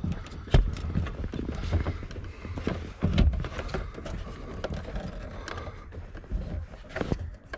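Irregular knocks, clicks and rattles of hands working the factory radio out from behind a 1975 Plymouth Duster's dash, with louder knocks about half a second in and about three seconds in.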